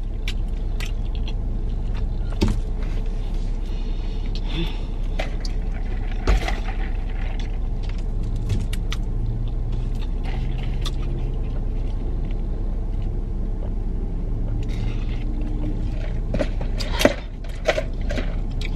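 A person chewing food and handling a fast-food cup and straw, with small clicks and rustles and a sharper knock about six seconds in and again near the end, over a steady low rumble inside a car.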